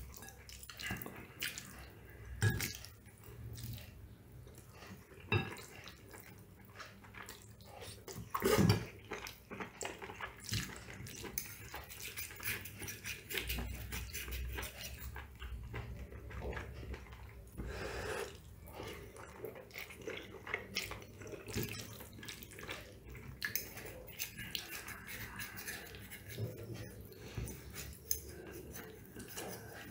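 Steel fork and spoon twirling spaghetti and tapping and scraping on a ceramic plate: light, scattered clinks with a few louder ones, the loudest about nine seconds in, along with the small wet sounds of eating.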